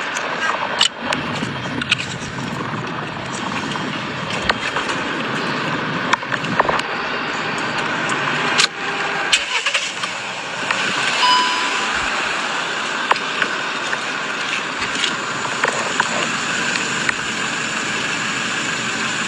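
A car engine running steadily, with scattered sharp clicks and knocks.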